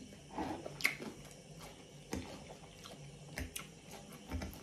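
Close-up wet mouth sounds of someone chewing kimchi, with a handful of short smacks and clicks.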